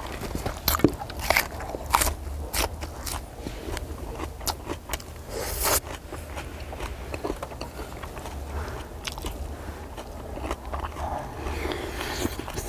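A person eating close to the microphone: biting and chewing, with sharp clicks and scrapes packed into the first half and softer chewing after.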